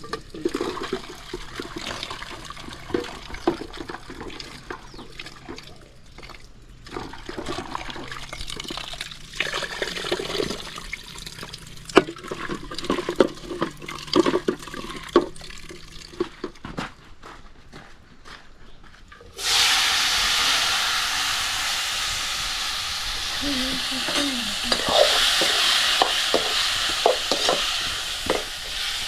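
Cooking-pot and utensil clicks and knocks, then about two-thirds of the way through a sudden loud sizzle of food going into hot oil, which keeps on with short stirring strokes over it.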